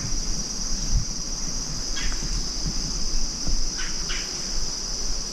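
Steady high-pitched insect chorus, like crickets, with irregular footsteps and the odd crunch of leaves and brush underfoot.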